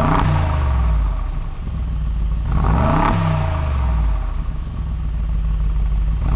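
Mercedes-AMG G63's twin-turbo V8 through a Brabus exhaust, blipped from idle. One rev is falling away as the sound begins, another rises and falls back about three seconds in, and a third starts to climb at the end.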